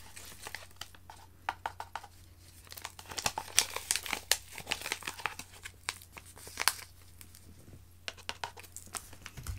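Crinkling of a drink-powder sachet as it is tipped, squeezed and tapped to empty fine powder into a plastic shaker cup: irregular crackles coming in clusters.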